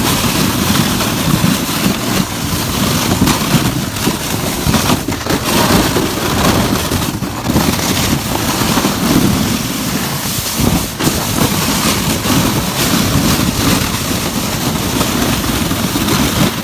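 Sled towed over bumpy snow: a loud, continuous rumbling and scraping of the sled's bottom across the snow, with no clear engine note.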